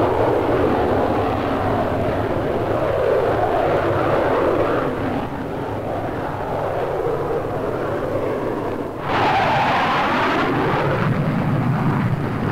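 Jet noise from a de Havilland DH.110 with twin Rolls-Royce Avon engines flying overhead: steady, easing off a little midway. About nine seconds in comes a sudden louder, high-pitched whine that bends in pitch as the aircraft passes.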